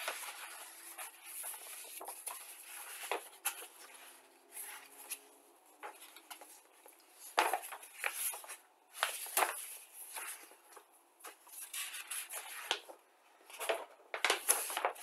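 Large paper instruction sheets of a plastic model kit rustling and crinkling as they are handled, lifted and their pages turned, in irregular uneven bouts.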